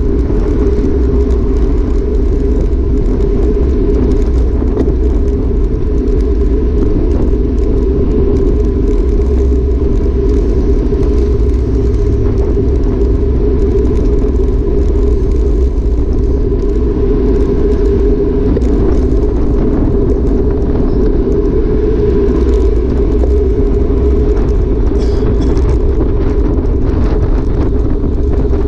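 Steady, loud rush of wind on a handlebar-mounted camera's microphone on a road bike at speed, mixed with the hum of tyres rolling on asphalt.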